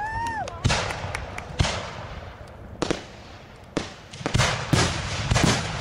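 Aerial firework shells bursting overhead: about seven sharp bangs at uneven intervals.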